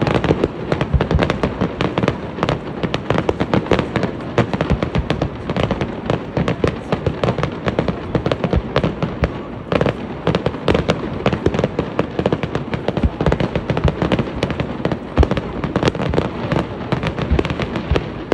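Aerial fireworks bursting in a dense, unbroken barrage: many bangs and crackles every second, at a steady loudness.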